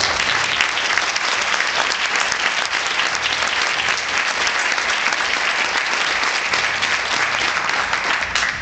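Audience applauding steadily, stopping abruptly near the end.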